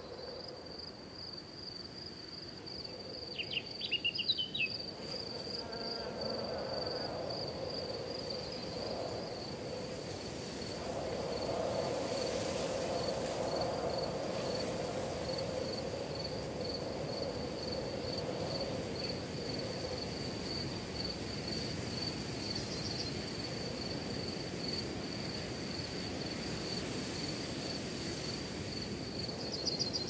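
An insect trilling high and steady in rapid even pulses, with a brief burst of chirps about four seconds in and a low steady hum underneath for much of the time.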